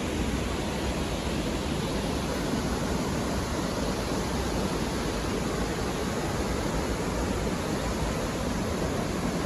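Steady rushing noise of Athirappilly Falls, a large waterfall, unchanging throughout.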